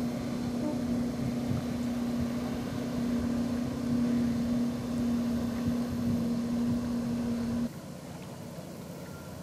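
A motorboat engine running with a steady hum over a low rumble, cut off abruptly near the end and replaced by a fainter, even background noise.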